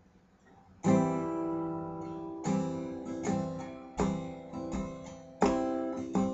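Acoustic guitar strummed in chords, the first starting about a second in and ringing out, then a run of strums in a loose rhythm, each chord left to ring.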